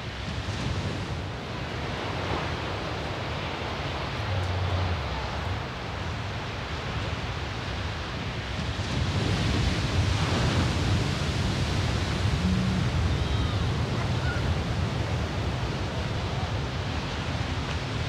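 Heavy surf: large ocean waves breaking and washing up a sand beach in a continuous deep rush, growing louder about halfway through as bigger waves crash.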